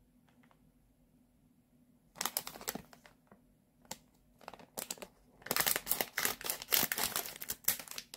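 Clear plastic packaging crinkling as a hairbrush sealed inside it is handled. The sound comes in short bursts with a few clicks from about two seconds in, and is busiest over the last few seconds.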